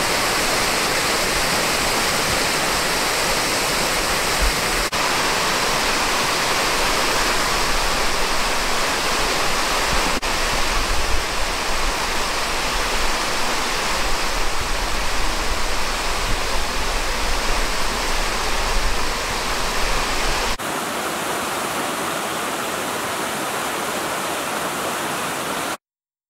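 Waterfall rushing, a steady dense wash of falling water with a few abrupt jumps in level and tone. It cuts off suddenly near the end.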